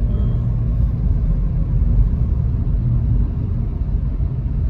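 Steady low rumble of a car's road and engine noise heard inside the cabin while driving.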